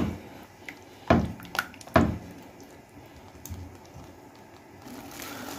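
A silicone spatula stirring thick béchamel in a pot, with a few sharp knocks in the first two seconds and softer scraping after.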